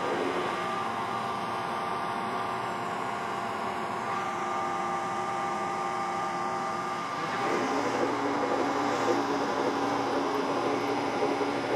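A 1950s metal shaper running, its ram working the cutter through an aluminum coupler to cut internal splines: a steady mechanical drone that gets a little louder and changes tone about seven and a half seconds in.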